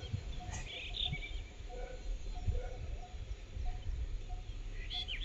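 Birds chirping briefly, about a second in and again near the end, over a short low call repeated about twice a second and a low flickering rumble.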